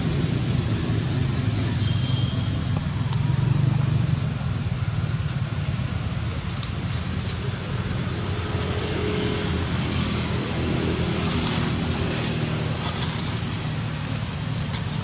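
Steady low rumbling outdoor background noise, with a few faint clicks near the end.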